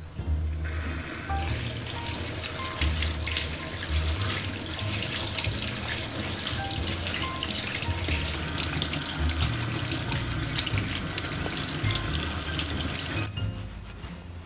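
Water running from a kitchen mixer tap into a white enamel colander in a stainless-steel sink, splashing as hands rinse fruit in it. The water shuts off abruptly about a second before the end.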